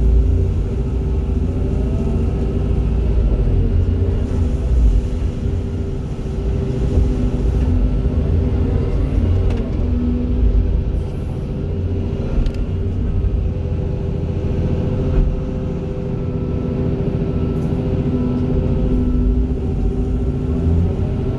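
Diesel engines of two working excavators, a Volvo and a Hitachi, running steadily: a continuous low rumble with a steady hum, and a few brief knocks.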